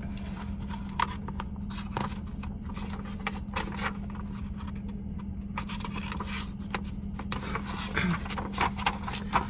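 Paper pages of a hardcover picture book being turned and handled: irregular rustling, scraping and light taps, over a steady low hum.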